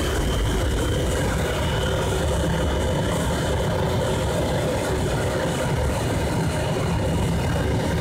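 PE plastic recycling extruder machine running steadily: a continuous heavy mechanical drone from its motor and drive, with a faint steady whine above it.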